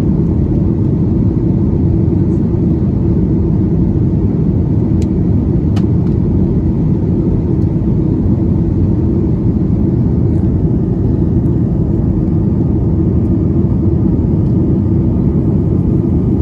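Steady cabin roar inside a Boeing 737 MAX 9 in flight: its CFM LEAP-1B turbofan engines and the rushing airflow heard through the fuselage as a deep, even rumble. Two faint clicks come about five and six seconds in.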